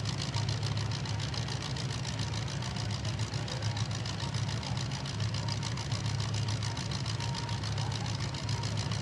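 Demolition derby cars' engines idling, a steady low rumble with no revving.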